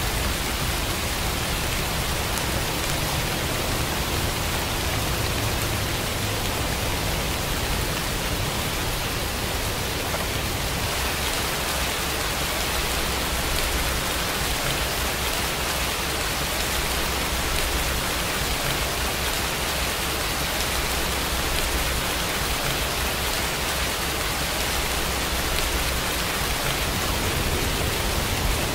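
Recorded rain falling steadily: an even, unbroken hiss.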